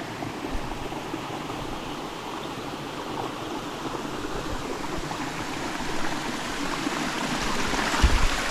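Fast-flowing rainwater rushing through a crack in the sandstone rock, a steady rushing that grows louder toward the end, with a couple of low thumps near the end.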